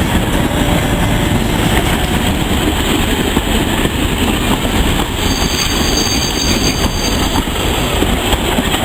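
Heritage railway train running along the track: a steady, even noise of carriage wheels on the rails throughout.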